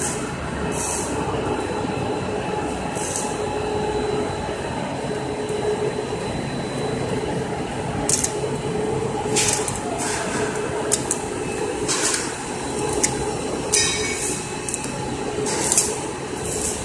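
Sheet roll-up winding machine running steadily, winding white plastic sheet onto a roll: a continuous mechanical hum with a faint steady whine. Brief hissing rustles and a few light clicks come every second or two.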